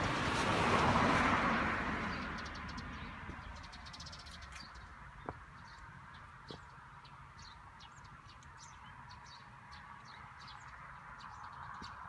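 A passing vehicle swells to a peak about a second in and fades away over the next few seconds. After that, faint bird chirps are heard over a quiet rural background, with two brief sharper sounds in the middle.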